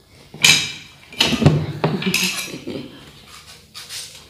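Metal spoons clinking and scraping against a metal bowl of shredded green mango salad, several separate clatters with a short metallic ring.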